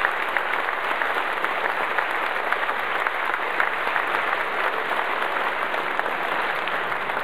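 Concert audience applauding: dense, steady clapping from a large crowd.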